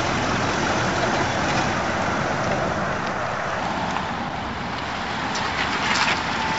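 Steady road traffic noise as cars and SUVs pass close by: engines and tyres on asphalt, with a few brief clicks near the end.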